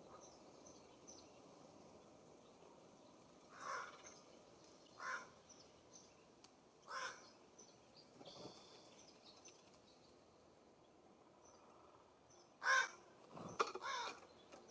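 California Scrub-Jay giving short, harsh, raspy calls: three single calls spaced a second or two apart, then a louder burst of several calls with a sharp knock near the end. Faint high chirps from small birds in the background.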